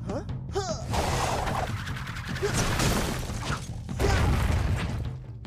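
Cartoon action sound effects: dense crashing and clattering, with a heavier crash and low rumble starting about four seconds in as stone pillars break apart.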